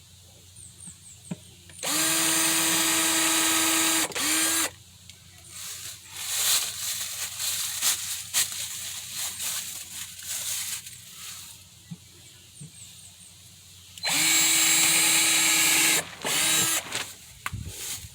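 Drill driving 1-inch screws into a half-inch plywood speaker baffle: two runs of about two seconds each at a steady pitch, the first followed by a short blip. Lighter knocks and handling clatter come in between.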